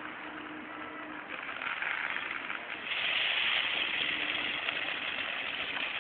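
A ground firework hissing as it sprays sparks. The hiss builds and grows louder about halfway through.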